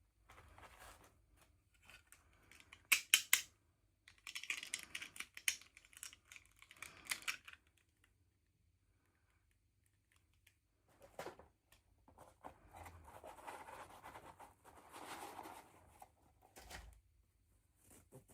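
Hands unpacking small toy dolls: sharp plastic clicks, then a stretch of crinkly packaging rustle, a pause of about three seconds, and softer handling noises.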